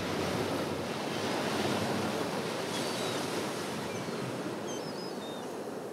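Ocean surf: a steady wash of waves, with a few faint, short, high chirps over it.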